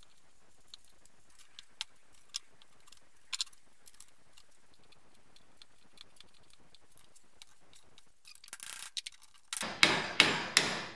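Scattered light metallic clicks and taps of sheet steel and tools being handled at a workbench, then near the end a quick run of loud hammer blows as a small steel patch piece is beaten into shape over a wooden block held in a vise.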